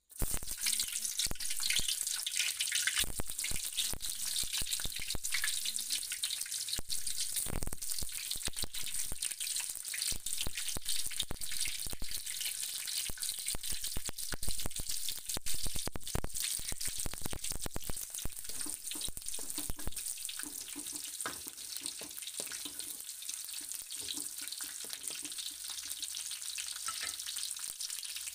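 Oil sizzling in a steel wok as sliced garlic fries in it: a steady hiss with many small crackling pops.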